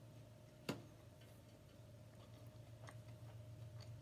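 Quiet chewing of fast food, with faint scattered mouth clicks and one sharp click about three quarters of a second in, over a low steady hum.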